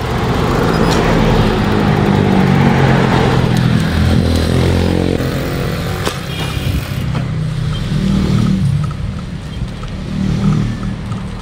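A small motor vehicle's engine running, its pitch rising and falling, with road noise; louder in the first few seconds, then easing.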